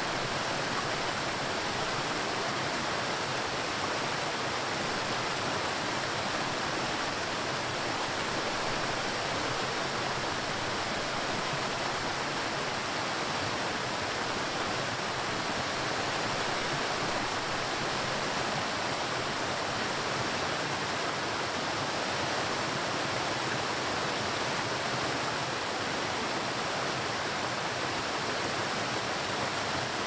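Waterfall: the steady rush of falling water, an even hiss with no breaks or changes.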